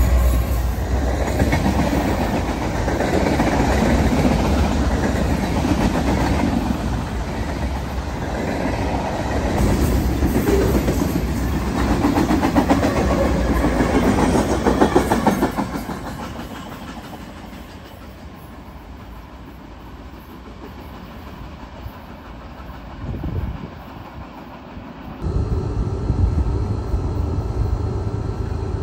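Diesel-electric freight locomotives of a Union Pacific manifest train passing close by, engines rumbling loudly and wheels clacking over the rail. After about fifteen seconds the sound drops to a quieter rumble. Near the end it changes abruptly to a steady low rumble from a distant approaching BNSF freight train.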